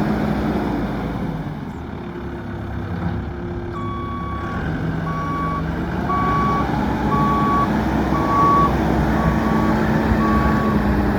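New Holland LB110 backhoe's diesel engine running, its pitch shifting as the machine works, with the backup alarm starting to beep about once a second a few seconds in as the backhoe reverses.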